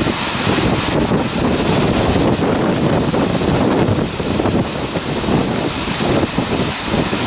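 Violent storm wind from a nearby tornado blasting across the microphone: a loud, unbroken rush with heavy low buffeting that rises and falls in gusts.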